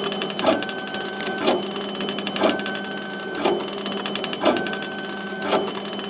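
Laser engraver's stepper-driven gantry sweeping the head back and forth while raster-engraving wood. Each sweep ends in a knock at the reversal, about once a second, and a whine sounds on every other pass, over a steady hum.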